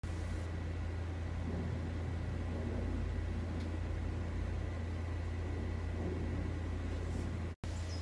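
Steady low hum with a faint hiss over it, a room's background noise; it cuts out for an instant near the end.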